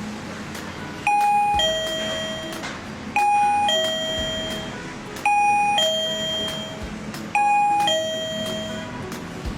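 Wireless doorbell chime playing a two-note ding-dong, a higher note falling to a lower one. It rings four times, about every two seconds, each time starting suddenly and fading away.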